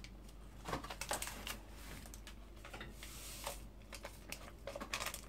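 Faint, scattered light clicks and paper rustling as a small paper sachet of vanilla sugar is shaken out over a metal bowl of flour.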